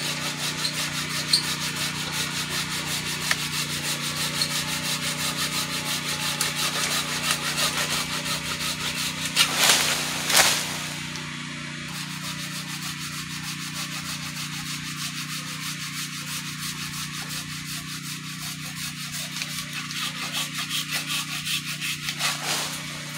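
Hand saw cutting through a tree branch in quick, even back-and-forth strokes. About ten seconds in there are two louder strokes, and the strokes are quieter after that.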